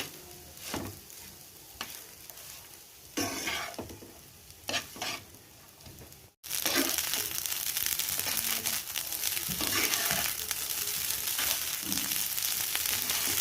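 Rice being stir-fried in a pan of oil tempering, with a spatula scraping and tapping the pan over a low sizzle. About six seconds in, after a brief dropout, a louder steady sizzle of frying takes over, with an occasional scrape.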